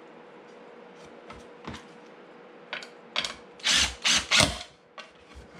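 Cordless drill-driver driving a screw through a wooden seat slat into the chair frame, in four short bursts about three seconds in. Light clicks of the screw being handled come before it.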